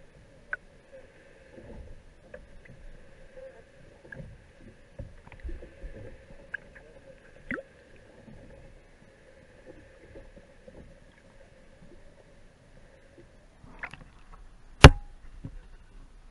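Underwater sound picked up through an action camera's waterproof housing: a steady low hum with a fainter higher tone over it, and scattered soft knocks and clunks. The hum stops about two seconds before the end as the camera comes out of the water, and then one sharp, loud knock of the housing against the boat's hull.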